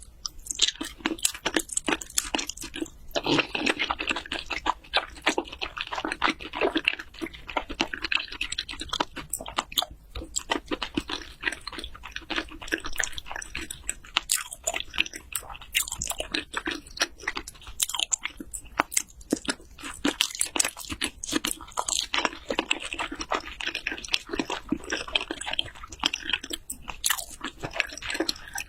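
Close-miked chewing and biting of raw seafood, salmon and raw shrimp: a steady run of wet mouth clicks and smacks with no pauses.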